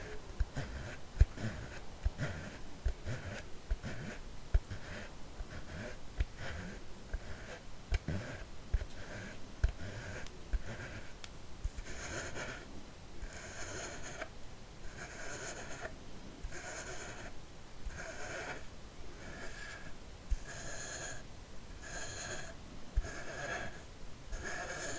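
An empty plastic kvass bottle being handled in a steady rhythm. In the first half there are quick strokes, about two or three a second, with light knocks. From about halfway the strokes slow to about one a second.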